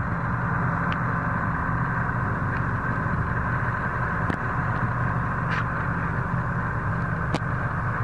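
Heavy diesel machinery running steadily at a constant speed: a New Holland CR combine harvester and a semi truck, with a few faint clicks.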